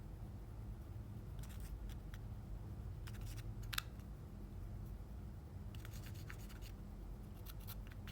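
Slime being worked by hand, giving off clusters of small sticky clicks and crackles, with one sharper pop about four seconds in, over a low steady hum.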